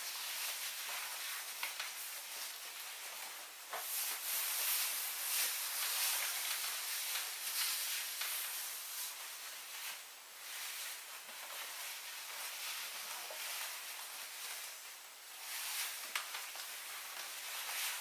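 Shiny PVC skirt rustling and swishing as the wearer moves and turns, a hissing noise that swells and fades, with a few faint clicks.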